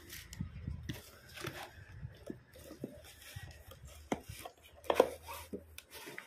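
A stack of wooden game blocks scraping and sliding out of a cardboard box, with rustling cardboard and irregular small wooden knocks; the sharpest knock comes about five seconds in.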